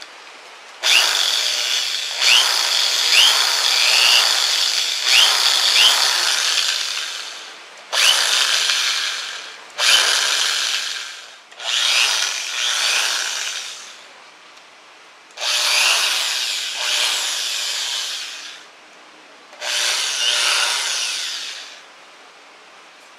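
J.C.K. (J.C. Kawasaki) 2010NR 500-watt corded electric drill running with an empty chuck, switched on six times. The first run lasts about six seconds, with the motor speed surging up and down several times on the variable-speed trigger. Five shorter runs follow, each spinning down after the trigger is let go.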